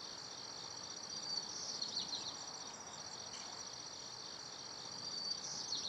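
Steady trilling of insects in a summer yard, with a few brief chirps over it around two seconds in and again near the end.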